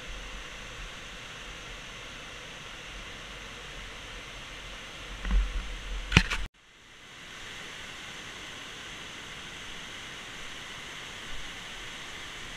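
Steady rushing of water pouring over Big Falls on the Cuyahoga River at low water, about 170 cfs. A few loud bumps on the microphone come about five to six seconds in, then the sound cuts out suddenly and the rush fades back in.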